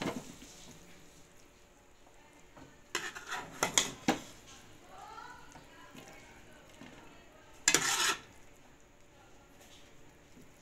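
A serving spoon scraping and clinking against a cooking pot and a serving bowl as cooked potato-and-mince curry is ladled out. The sounds come in short bursts, a cluster about three to four seconds in and the loudest about eight seconds in.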